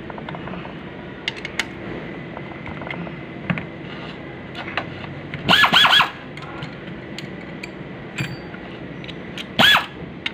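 A pneumatic hand tool's air motor whining up to speed in three quick bursts about five and a half seconds in, and once more near the end, rising in pitch and then holding. Light metal clinks and taps of transmission parts come between the bursts.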